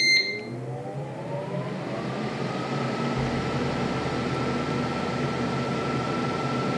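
Ninja air fryer beeping once as it starts, then its fan spinning up with a rising whine that levels off after about two seconds into a steady whir as the cooking cycle begins.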